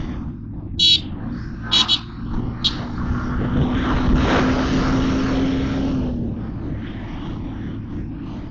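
Motorcycle riding on a highway: steady engine and road rumble with wind. Four short high-pitched beeps come about a second in, twice near two seconds and once more shortly after, then a vehicle passes close, swelling and fading between about three and six seconds with a steady low hum.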